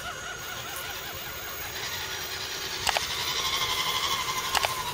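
Small electric motor of a radio-controlled scale truck whining, coming up about halfway and shifting pitch slightly near the end, with two sharp clicks.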